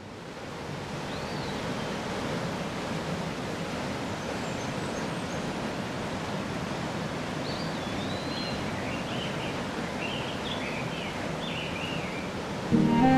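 Steady rushing outdoor ambience, like surf, fading in at the start, with scattered high chirps over it from about seven seconds in. Bowed string music begins just before the end.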